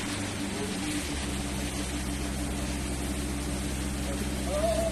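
Steady machinery hum with several held tones, joined about a second in by a deeper drone.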